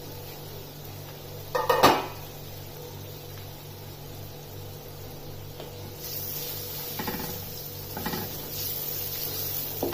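Tomato, onion and yogurt masala sizzling in a steel pot, the sizzle growing louder from about six seconds in, with a wooden spoon scraping the pot as it stirs near the end. A single loud knock about two seconds in.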